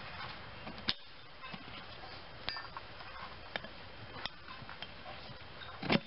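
Scattered light clicks and taps of gloved hands and rubber working against the steel rim as a 15x6.00-6 lawn tractor tire's bead is wrestled over it, with a louder knock just before the end.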